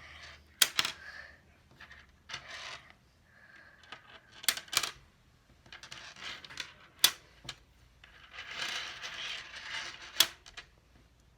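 Small magnet balls clicking and snapping together as they are pulled apart and set down, with a handful of sharp clicks and spells of scraping, rattling noise as the balls roll and slide.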